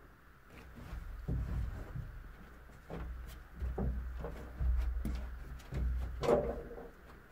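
People crawling through a tight rock passage, with knees, hands and shoes scuffing and knocking on the rock and gritty floor. Irregular low thumps and scrapes, the loudest bump about six seconds in.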